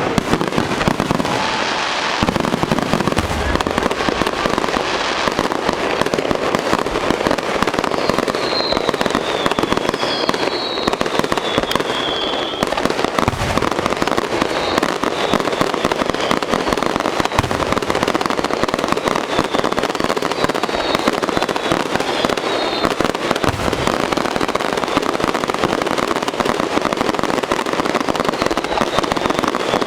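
Fireworks display going off without a break: dense continuous crackling, a few deep booms, and thin whistling tones through the middle.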